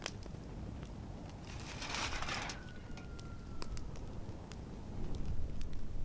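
Wood campfire crackling, with scattered sharp pops over a steady low rumble. About two seconds in there is a brief hissing rush, followed by a faint thin whistle that slowly drops in pitch.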